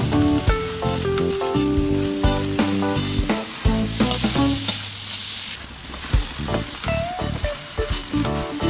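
Pork, string beans and squash sizzling as they sauté in a stainless-steel pan, tossed with a wooden spatula that clicks and scrapes against the pan. Background music with held plucked-string notes plays over it.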